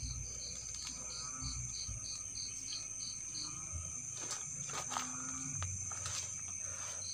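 Night insects: a steady high-pitched trill, with a cricket chirping about three times a second that stops about halfway through. A few faint clicks and rustles.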